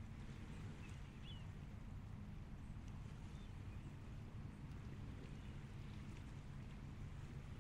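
Low, steady drone of a distant engine, with a few faint short bird chirps about a second in and again around three seconds.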